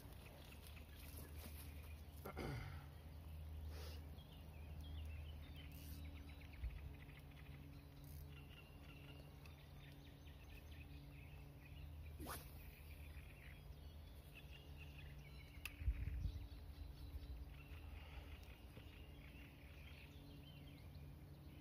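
Faint outdoor ambience: a steady low rumble with scattered faint bird calls, and a single low thump about sixteen seconds in.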